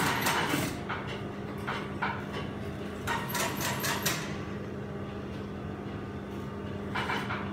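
Industrial sewing machine with a steady motor hum, broken by three short bursts of rapid clattering: near the start, for about a second around the middle, and near the end.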